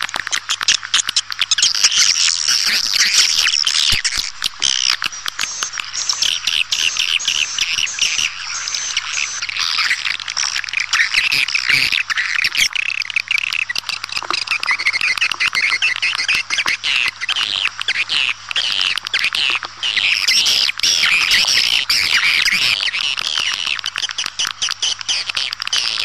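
Swiftlet lure call: a dense, continuous chorus of rapid, high twittering chirps from many swiftlets.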